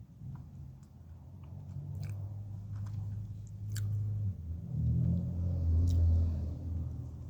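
Close-miked chewing of food in the mouth, a low, building munching sound with a few sharp clicks or crunches about two, four and six seconds in.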